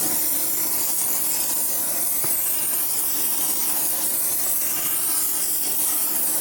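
Gas welding torch flame hissing steadily as it heats an aluminium Harley-Davidson panhead cylinder head.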